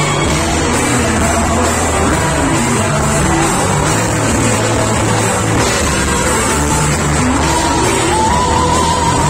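Live rock band playing a song cover: a woman singing lead into a microphone over drums and electric guitar, played loud through the venue's PA. Near the end her voice climbs and holds a higher note.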